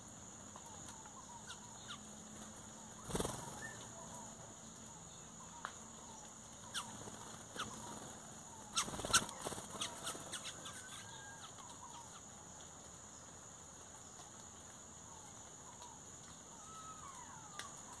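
Scattered small bird chirps and short calls over a steady high hiss. Two louder bursts of wing flapping come about three and nine seconds in as black birds fly off.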